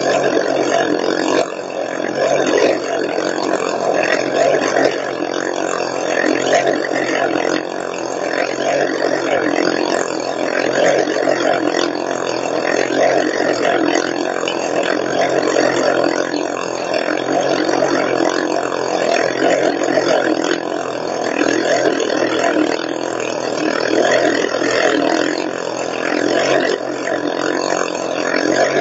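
Motorcycle engines running hard as riders circle the wooden wall of a well-of-death drum, the loud, continuous sound swelling and easing every couple of seconds.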